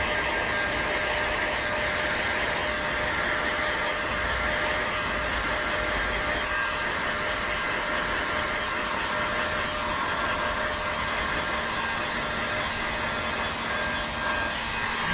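Heat gun running steadily, blowing hot air onto window tint film to shrink it: a constant rush of air with a steady pitched hum from its fan motor.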